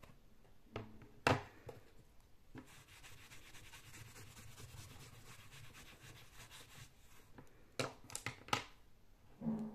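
Small plastic-framed whiteboard being handled: two knocks as it is put down, then about four seconds of quick, even rubbing strokes as the board is wiped clean, then a cluster of clacks near the end.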